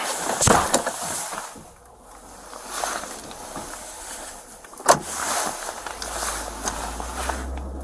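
Clothing and gear rubbing against a body camera inside a patrol car, with a sharp knock about five seconds in. A steady low car rumble then comes in about six seconds in.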